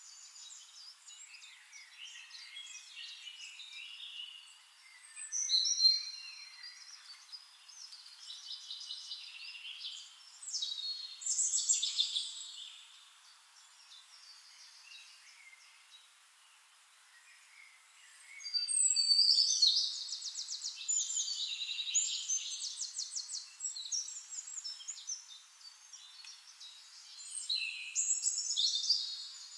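Several forest songbirds singing in bouts of quick, high chirping and trilled phrases, with quieter stretches between. The longest and loudest bout comes about two-thirds of the way through.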